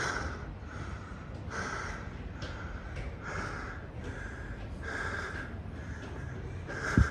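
A man breathing hard and fast, panting in and out about once every 0.8 seconds, winded from climbing stairs. Near the end there is one brief, loud thump.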